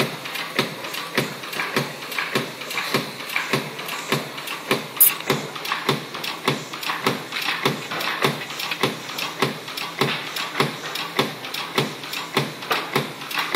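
SBM 320 screen protector die-cutting machine running, its cutting press stroking in a quick, even rhythm of clacks, about three a second.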